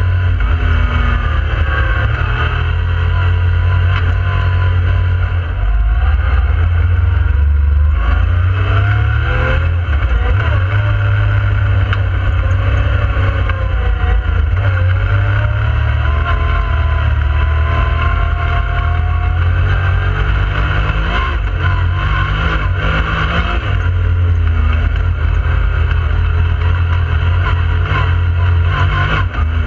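Yamaha YXZ1000R side-by-side's three-cylinder engine running under throttle, heard from inside the open cab. Its pitch rises and falls several times as engine speed changes.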